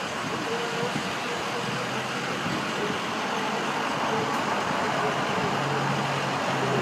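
Steady motor-vehicle noise, an engine running with a low hum over a wash of street traffic.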